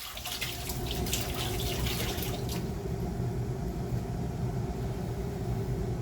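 Tap water running steadily into an electric kettle as it is filled, with some splashing in the first couple of seconds.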